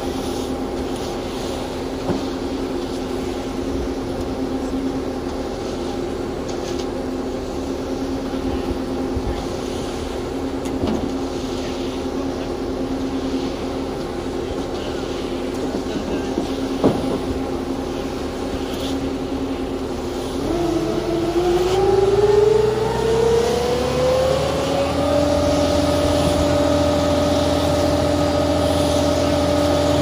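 Concrete mixer truck's diesel engine running steadily; about 20 seconds in it revs up smoothly over a few seconds and holds at the higher speed.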